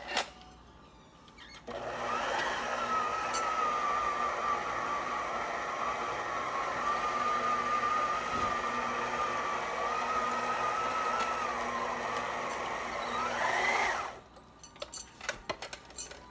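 Electric stand mixer motor running steadily with a whine, beating a ground-beef meatloaf mixture in a stainless steel bowl; it starts about two seconds in and switches off about two seconds before the end, its pitch rising just before it stops. A few clicks from handling the mixer come before and after.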